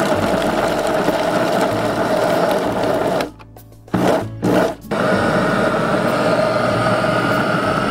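Small electric grinder running on frozen, thinly sliced sea staghorn seaweed (cheonggak), grinding it to powder: a steady motor whine. It stops about three seconds in, gives two short bursts, then runs steadily again at a higher whine.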